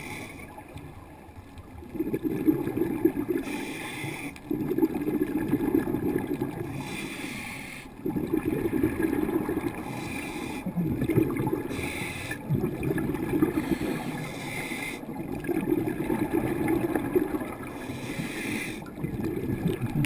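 Scuba diver breathing through a regulator, recorded underwater through the camera housing: a short hiss on each inhale, then a longer bubbling rush of exhaled bubbles. The cycle repeats about every three to four seconds.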